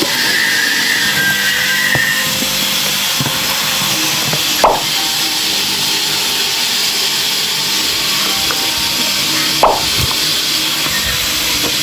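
Background music over a steady scratchy rustle of plastic wrapping being handled around a boxed security camera. Two sharp, brief rising sounds come about five seconds apart.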